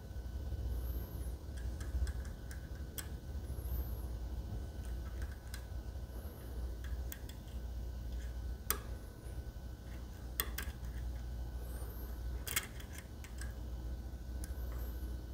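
Irregular faint clicks and ticks of a lock pick probing the pins of a Medeco cylinder held under a tension wrench, a few sharper ticks a little past the middle.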